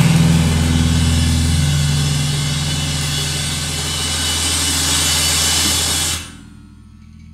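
The song's final chord held as a loud, steady distorted drone with a dense hiss over low sustained tones. It cuts off suddenly about six seconds in, leaving a faint amplifier hum.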